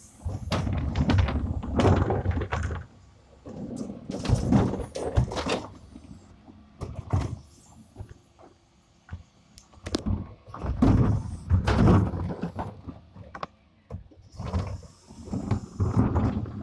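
Brown plastic wheelie bins being emptied by a refuse lorry's rear bin lift: several rounds of rumbling, knocking and thudding as the bins are wheeled up, raised, tipped and shaken out, with quieter gaps between.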